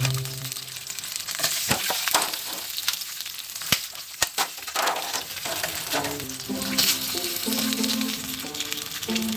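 Meatballs sizzling in hot olive oil in a frying pan. In the middle there are a few sharp knocks and rustles as more meatballs are tipped in from a plastic bag, followed by stirring with a wooden spatula.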